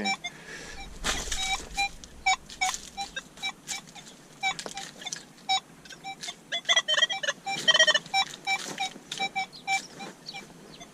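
Metal detector giving short, repeated beeps on targets, mixed with scraping and knocking of digging through ground and debris. About seven seconds in comes a louder run of higher, wavering tones.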